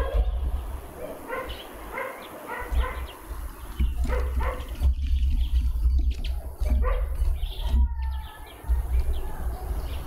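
Outdoor garden ambience of bird calls and chirps mixed with a dog barking repeatedly in the distance, over a steady low rumble.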